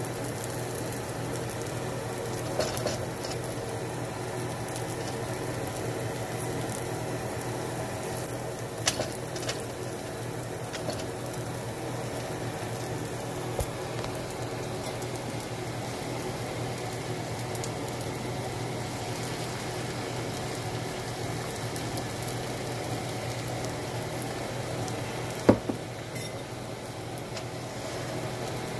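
Eggs, sausages and cabbage sizzling steadily in a nonstick skillet, with a few sharp clicks of a spatula against the pan, the loudest near the end.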